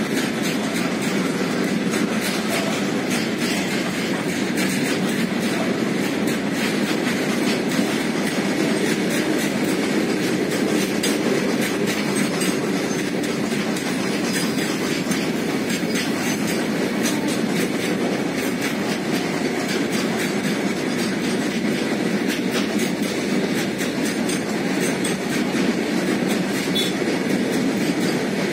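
A freight train of open-top wagons rolling past: a steady rumble of wheels on rail with a constant patter of clicks as the wheels cross the rail joints.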